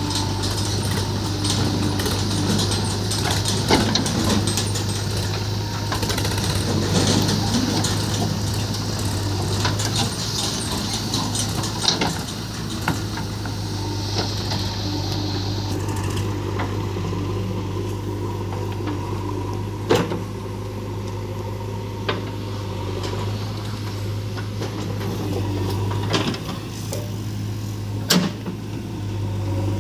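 Diesel engine of a JCB 3DX backhoe loader running steadily as it loads earth, a low drone, with sharp knocks about eight seconds apart.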